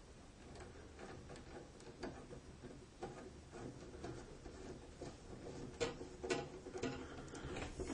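Faint, irregular clicking and scraping as a twist-on wire connector is threaded down onto a splice of neutral wires, the clicks coming thicker and louder from about six seconds in.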